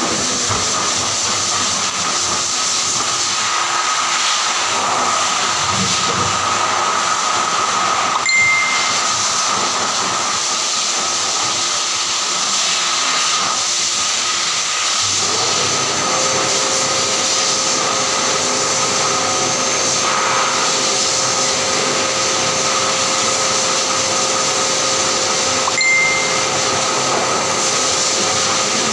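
Pet grooming dryer running steadily: a loud hiss of blown air over a motor whine. About halfway a new steady hum joins in, and two short high tones sound, about a third of the way in and near the end.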